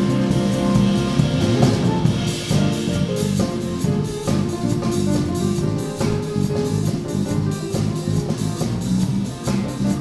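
Live jazz piano trio playing: grand piano, bass and drum kit together, the drummer keeping time with a steady run of cymbal strokes.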